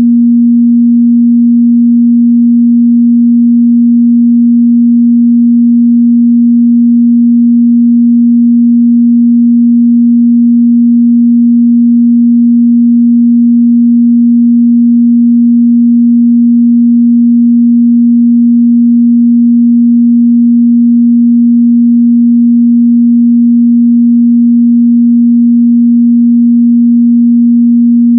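A steady, loud 237 Hz sine-wave test tone, one pure pitch held unchanged, used to check a speaker's or headphone's mid-bass response.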